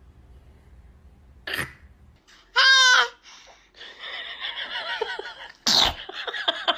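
A baby's short sneezes, one faint and one loud near the end, with a brief high squeal in between, and laughter in quick rhythmic bursts at the very end.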